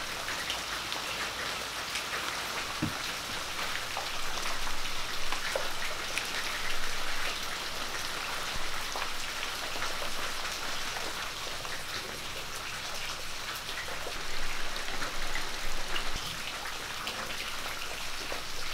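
Steady rain falling, a dense patter of drops with a few louder swells.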